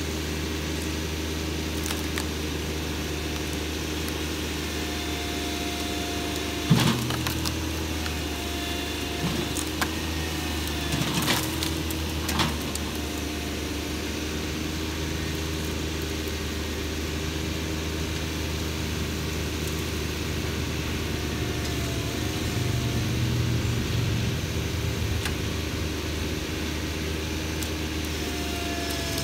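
A John Deere 2210 sub-compact tractor's three-cylinder diesel engine running steadily under load while its front loader pushes against a dead apple tree, with three sharp cracks in the first half.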